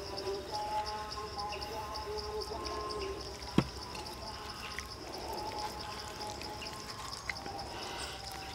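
Hands rubbing chili paste into a boiled pig head make soft wet smearing sounds, with one sharp knock about three and a half seconds in. Insects buzz steadily throughout.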